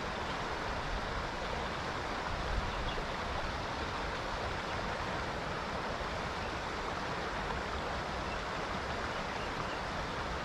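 River water rushing steadily: an even hiss with a low rumble underneath.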